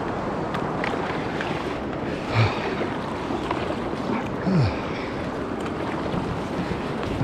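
Steady rush of river water around a small boat on the move, with two brief louder sounds about two and a half and four and a half seconds in.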